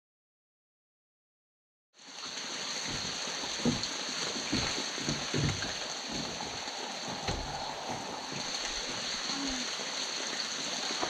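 Steady rain falling, with irregular heavy drops knocking close by. It starts after about two seconds of silence.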